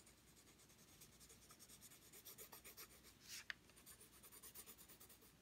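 Graphite pencil shading lightly on paper: faint, quick back-and-forth scratching strokes, with one sharper scratch about three and a half seconds in.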